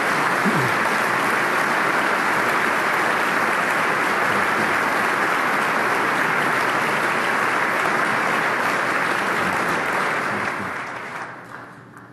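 A large audience applauding steadily, dying away over the last second or two.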